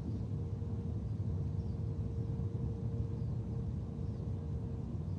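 Steady low outdoor background rumble with a faint steady hum that stops near the end, and a few faint high chirps; no club swish stands out.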